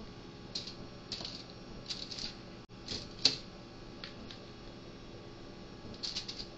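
Acorn squash slices being shifted and set down on a parchment-lined baking tray: a few short bursts of paper crinkling and light taps, the sharpest tap a little over three seconds in.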